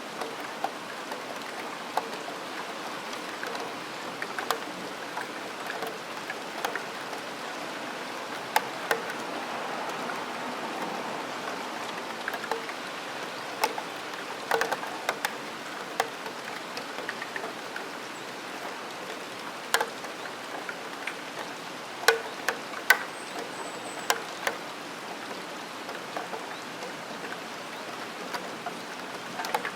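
Rain on a steel window sill: a steady hiss of rain with irregular sharp ticks and pings of single drops striking the metal. The loudest drops come in a cluster about two-thirds of the way through.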